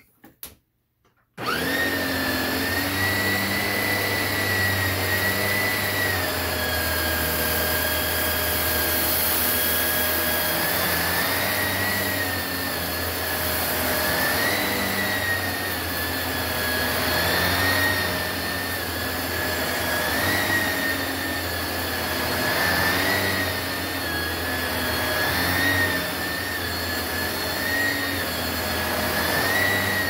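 Hoover WindTunnel V2 upright vacuum cleaner starting up abruptly about a second and a half in, then running on carpet: a steady motor whine whose pitch dips and recovers every few seconds as the vacuum is pushed back and forth.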